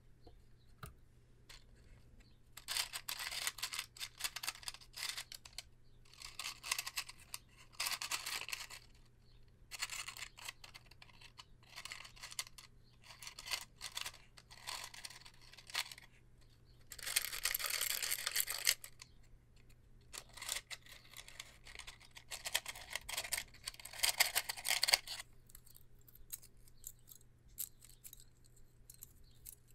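Wooden extra-long safety matches (Redheads) rattling and clattering against each other and the cardboard tray as fingers rummage through the open box. The sound comes in repeated bursts, loudest about two-thirds of the way through, and thins to a few light ticks near the end.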